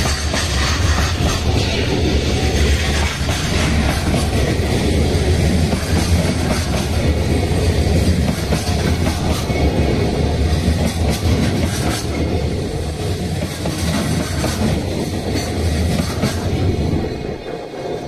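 Freight train rolling past close by, its wheels clattering over the rails, with a dense, loud rumble. The noise eases somewhat near the end.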